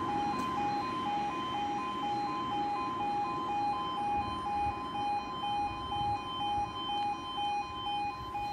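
Level crossing audible warning alarm sounding as the barriers come down, alternating evenly between two tones. A low rush of road noise sits under it, strongest at the start.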